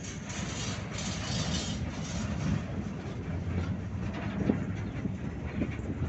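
Steel gondola freight cars rolling past, a steady rumble of wheels on rail, with a sharp knock about four and a half seconds in.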